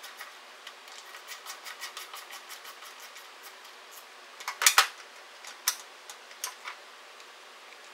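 Ratchet clicking quickly and evenly, about six clicks a second, as the small 8mm screws holding the tailgate lock are backed out. Then come a few louder metallic clacks as the lock and handle parts are handled, and the clicking stops.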